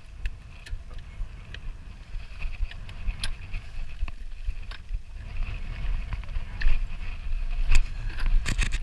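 Mountain bike rolling down a loose rocky trail: tyres crunching over stones, with scattered sharp clicks and clattering knocks from the bike jolting over rocks, the loudest knocks near the end. A constant low rumble runs under it all.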